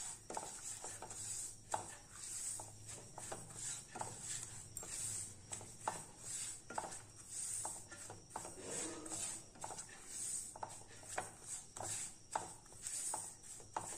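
Silicone spatula stirring and scraping dry semolina around a nonstick pan as it roasts in a little ghee: faint, irregular scrapes and small knocks, about one or two a second.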